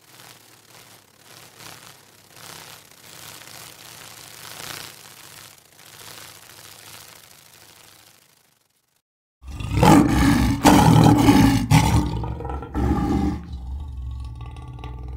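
A faint hiss for about the first eight seconds, then, after a brief silence, a lion roars loudly for about four seconds. A quieter, drawn-out call follows to the end.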